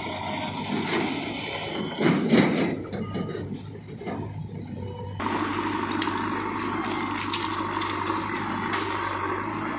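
Diesel engines of a farm tractor and a JCB backhoe loader running, with a louder rush of noise about two seconds in. At about five seconds the sound switches abruptly to a steadier, closer engine drone.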